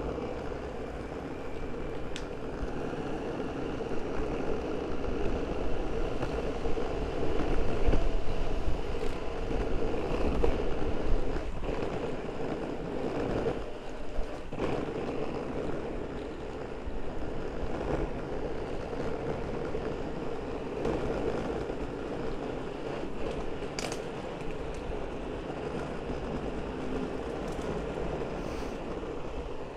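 Skateboard wheels rolling over pavement: a steady road noise with wind buffeting the microphone, swelling louder for a few seconds in the middle, with an occasional click.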